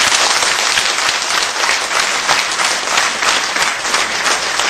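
An audience applauding loudly: a dense, steady round of many hands clapping.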